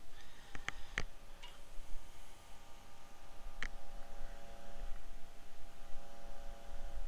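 Metal tweezers clicking against a small circuit board during hand soldering: three light clicks within the first second and one more a little past halfway, over a faint steady electrical hum.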